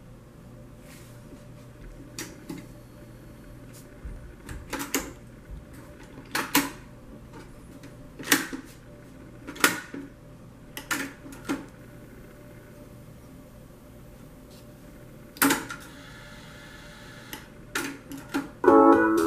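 Onkyo double cassette deck being operated: about a dozen separate mechanical clicks and clunks from its buttons, cassette door and tape transport, some in quick pairs. Near the end, music starts playing from the tape.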